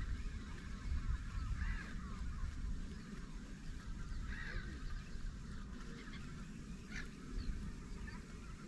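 Scattered bird calls, short and pitched, coming every second or so, over a low, uneven rumble.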